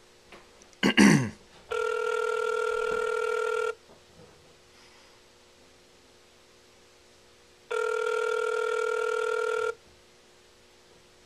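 Telephone ringback tone of an outgoing call that has not yet been answered: two rings, each about two seconds long, four seconds apart. About a second in comes a brief loud sound that falls in pitch.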